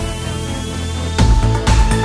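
Background music: a rising sweep with the drums dropped out, then the beat comes back in a little over a second in.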